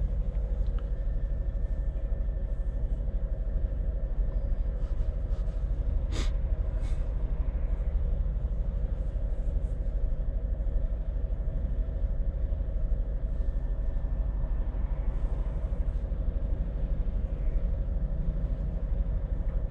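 Steady in-cab rumble of a Scania truck's engine and drivetrain while driving, with a single sharp click about six seconds in.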